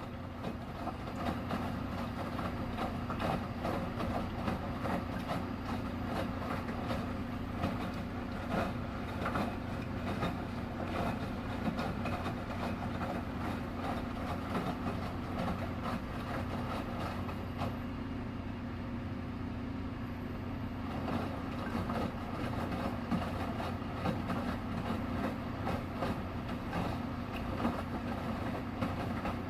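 Washing machine running: a steady low hum with frequent irregular clicks and knocks.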